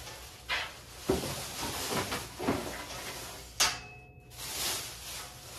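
Flat-pack desk panels being handled and unwrapped: a handful of separate knocks and bumps, the sharpest about three and a half seconds in, with packaging rustling between them.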